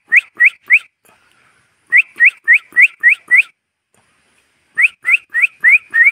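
A person making quick kissing squeaks to call a cat: three runs of short, rising chirps, about three a second, with brief pauses between the runs.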